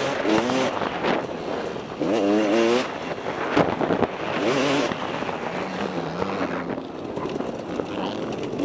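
KTM 250 SX two-stroke motocross engine revving hard and backing off in repeated surges, its pitch climbing and dropping, then running lower and steadier past the middle. Wind rushes over the helmet microphone throughout.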